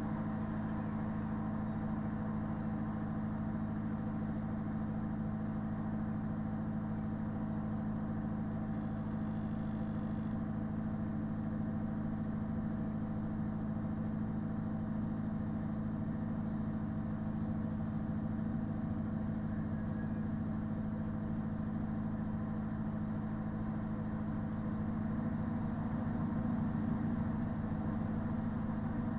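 Parked lorry's engine idling together with its refrigeration unit running: a steady low drone with a strong hum, swelling slightly near the end.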